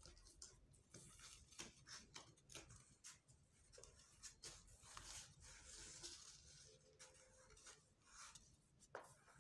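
Faint rustling and creasing of a strip of white paper being folded and pressed flat by hand, a run of short, irregular scratchy strokes.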